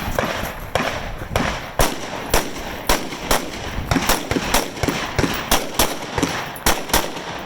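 Rifles firing on a match firing line: a rapid, uneven run of sharp shots, about two a second, from several shooters at once.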